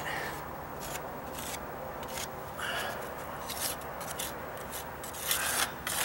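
Small putty knife scraping and spreading wet patching compound over a wooden deck stair tread, a series of short, irregular scraping strokes, louder about five seconds in.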